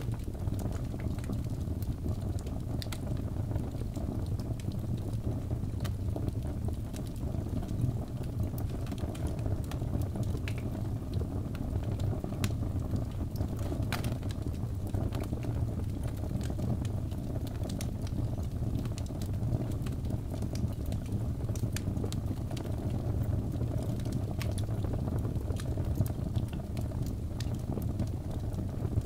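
Wood fire burning in a fireplace: a steady low rush of flames with frequent sharp crackles and pops from the logs, one louder pop about halfway through.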